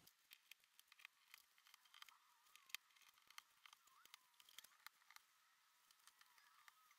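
Near silence with faint, irregular small clicks and crackles of masking tape being pulled from the roll and pressed onto the wall.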